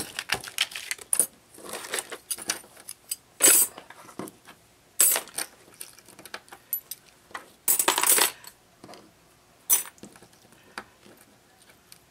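Small metal craft embellishments (filigree frames, charms, keys and brads) clinking against one another as they are scooped up and handled. The clinks come in irregular bursts, the longest about eight seconds in.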